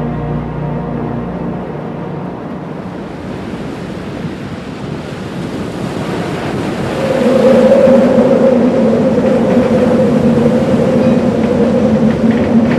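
Music fades out at the start, giving way to a rushing wind-and-surf noise. About seven seconds in, a steady low drone comes in and grows louder.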